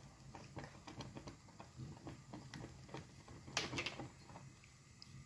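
Faint, scattered small ticks and soft taps from a pot of sheer korma (milk and vermicelli) heating on a low flame, with a slightly louder clatter about three and a half seconds in.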